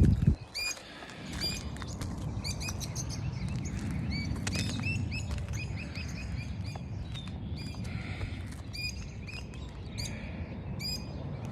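Birds chirping: many short, repeated chirps over a steady low rumble, with scattered light clicks.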